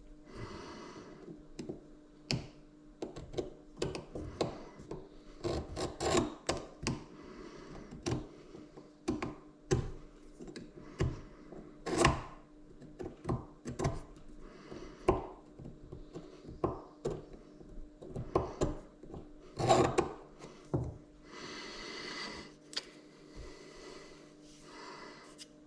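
Hands working a 3D-printed plastic template against a metal spur gear and scribing the outline of the missing teeth. Irregular clicks and knocks of parts being handled and set down, with stretches of scratching from the scriber.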